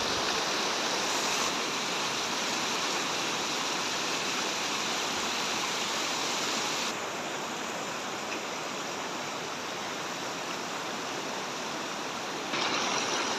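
Muddy floodwater rushing and hissing steadily. The sound drops in level abruptly about seven seconds in and comes back louder near the end.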